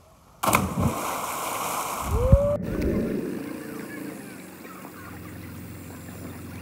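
A person plunging into the river from the rope swing: a sudden loud splash about half a second in, with water churning for about two seconds. Then, after a cut, a boat motor runs steadily under water noise.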